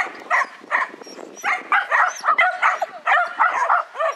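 A dog barking rapidly and repeatedly, about three sharp barks a second.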